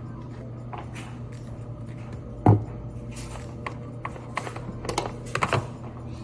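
Kitchen handling sounds: a sharp knock about two and a half seconds in and a few light clicks near the end, over a steady low hum.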